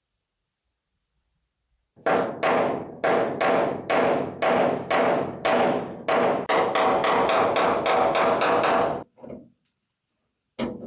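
Hammer blows on car-body sheet metal, each strike ringing briefly. The blows come about two a second, then quicken to about four a second before stopping, with one more strike near the end.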